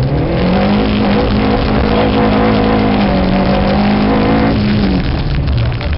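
Rally car engine heard from inside the car, revving up hard as it accelerates and holding at high revs, with the revs dropping away about five seconds in, over loud road and tyre noise.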